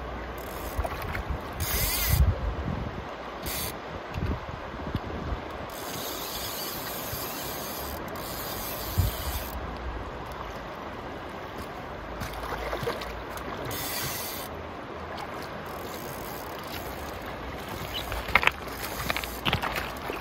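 Hardy Perfect fly reel's click check buzzing in several runs as a hooked fish pulls line off it, the longest about six seconds in, over the steady rush of the river.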